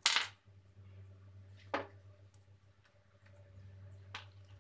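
A few short sharp clicks and taps of small string-trimmer carburetor parts being handled and set down on a wooden workbench: the loudest right at the start, another a little under two seconds in and one near the end, over a faint steady low hum.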